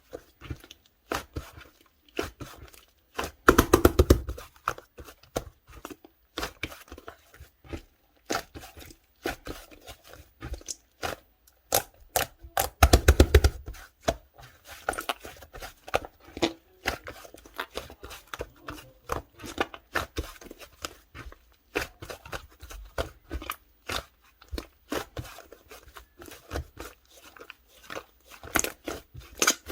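Yellow slime being pressed, stretched and squished by hand, making a quick run of small clicks and pops, with two louder spells of crackling about four seconds in and again around thirteen seconds.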